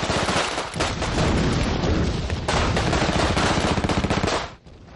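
Battle gunfire: rifles and machine guns firing rapidly, shot on shot. It stops abruptly a little before the end.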